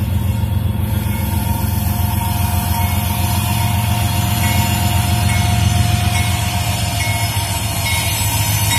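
Diesel-electric freight locomotives approaching with their engines running: a steady low rumble with a faint thin whine above it, growing slightly louder near the end as they come closer.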